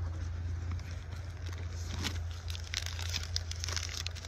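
Zip-top plastic bag of trail mix crinkling and rustling as it is handled and pulled out of a pack, with scattered small clicks and crackles that grow busier near the end, over a steady low hum.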